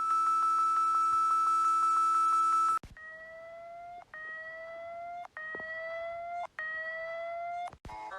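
Emergency alert alarm tones. A loud steady high-pitched tone holds for nearly three seconds and cuts off, then come four rising siren sweeps of about a second each, separated by brief breaks.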